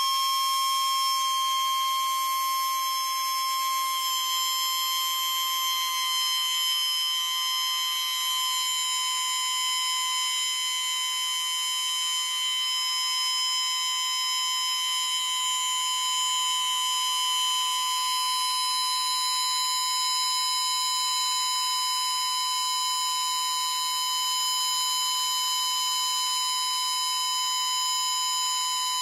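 Homemade high-speed pulse motor with a bifilar stacked pancake drive coil, running at about 60,000 rpm. It makes a steady high-pitched whine near 1 kHz with many overtones.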